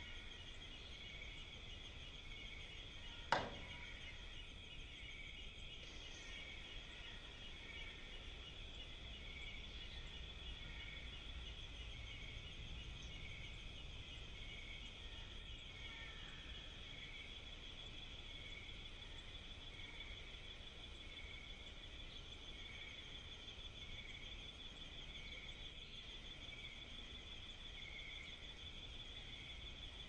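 Steady chorus of chirping insects: a continuous high, fast-pulsing trill with a lower chirp repeating a little more than once a second. A single sharp click about three seconds in.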